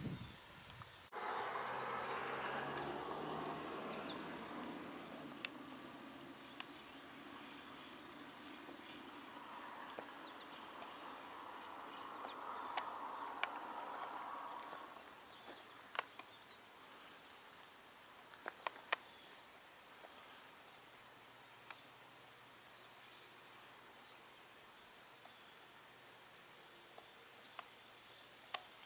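A steady, high-pitched insect chorus with a regular pulsing beat that runs without a break. Under it is a soft, low rushing noise, plainest in the first half.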